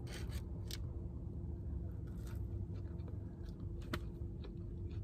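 A person chewing french fries with a few small clicks and mouth sounds, over a low steady hum.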